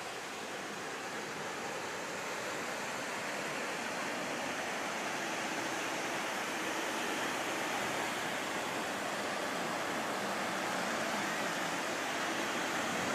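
Steady wash of ocean surf, growing slowly a little louder.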